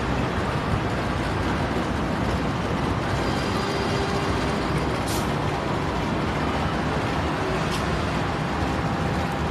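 Steady, loud vehicle rumble, with two brief high clicks about five and eight seconds in.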